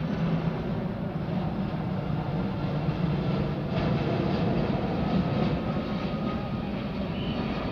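Steady, loud mechanical rumble of a large vehicle running continuously, heaviest in the low range, with no distinct knocks or changes.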